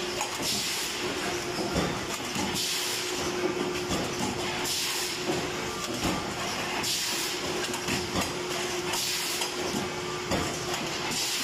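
An 18-litre square can lid curling and lining machine running: a steady hum with light clacks, and a burst of compressed-air hiss about every two seconds as it cycles.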